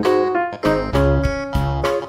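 Background music: an upbeat keyboard tune with piano-like struck notes over a steady bass beat.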